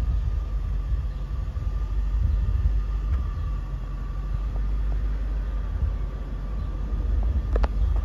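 2002 Ford Thunderbird's 3.9-litre V8 idling steadily, a low exhaust rumble heard from behind the car, with a sharp click near the end.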